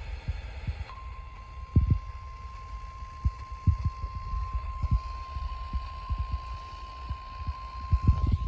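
Weather-radio alert tone: a single steady tone near 1 kHz, consistent with the National Weather Service 1050 Hz warning alarm, starting about a second in. Irregular low thumps from the radio reception run underneath it.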